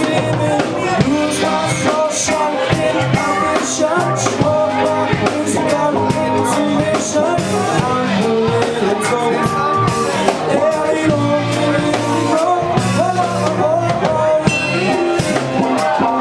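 Rock band playing live: drums with cymbals, guitar and bass, with pitched melodic lines bending over the top.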